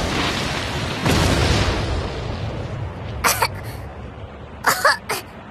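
Cartoon blast sound effect: a sudden impact about a second in that fades away as a rumble, followed by a few short, sharp bursts of sound near the end.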